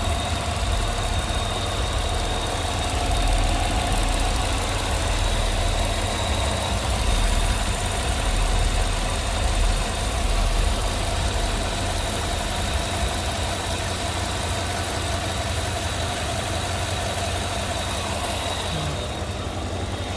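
Car engine idling steadily with its vacuum pump removed and the pump's holes plugged. This is the run that tests whether the noise that sounded like failing lifters is gone.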